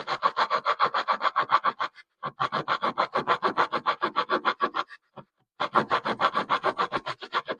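The saw blade of a Mossy Oak 21-in-1 multitool cutting through a piece of wood in quick, short back-and-forth strokes, about seven a second. The sawing comes in three runs, with brief pauses about two seconds in and about five seconds in.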